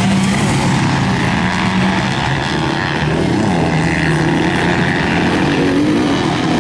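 Several motocross bike engines racing on the track, their pitches rising and falling as the riders rev through the gears, overlapping one another.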